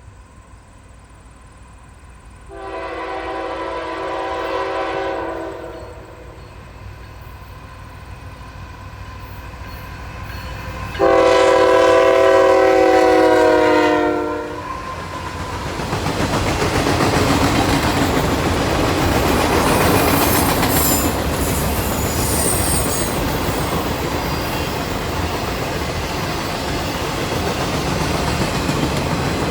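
Freight locomotive air horn sounding two long blasts, the second louder, as the train approaches. Then the lead CSX GE ET44AH and ES44AH locomotives and freight cars pass with a steady rumble and wheels clacking over the rail joints.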